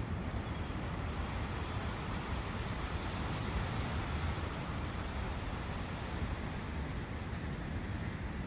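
Steady rushing of a forest brook flowing, an even unbroken sound of running water.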